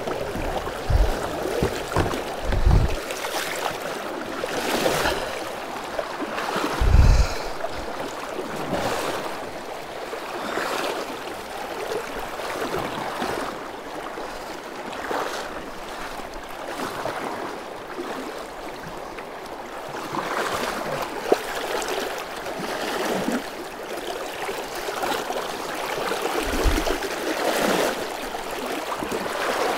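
Fast, shallow stream water rushing over shoals around a kayak, with repeated splashes of paddle strokes. A few short low thumps stand out, loudest about seven seconds in.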